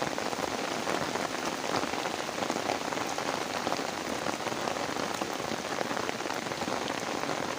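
Heavy rain falling steadily, a dense hiss made up of countless separate drop hits.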